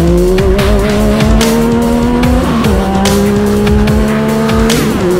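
2016 Yamaha YXZ 1000R side-by-side running a swapped-in Yamaha Viper 1050 three-cylinder snowmobile engine, accelerating hard. The engine pitch climbs steadily and drops sharply twice, about two and a half seconds in and near the end, as it shifts up a gear. Scattered knocks from the rough trail are heard alongside.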